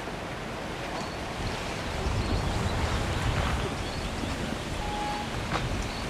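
Wind blowing across the microphone outdoors, a steady rush with a low buffeting rumble that grows stronger about two seconds in, and a few faint, short, high chirps over it.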